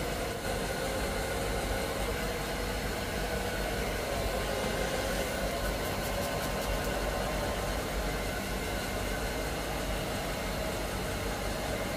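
Handheld electric hair dryer running steadily, blowing warm air over a kitten's fur to dry it.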